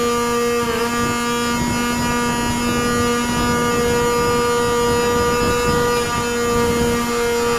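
RC model plane's motor and propeller running at a steady pitch in flight, heard from on board the plane with wind rushing past.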